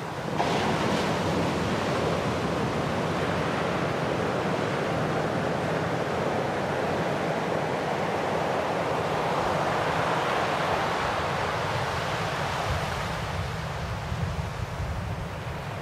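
Sea surf washing onto a shore: a steady rush of breaking waves that starts suddenly, swells about two-thirds of the way through and eases off near the end.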